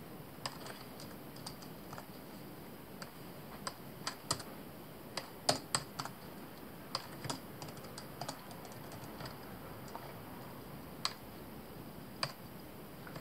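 Typing on a laptop keyboard: irregular, scattered keystrokes, a few of them sharper and louder than the rest.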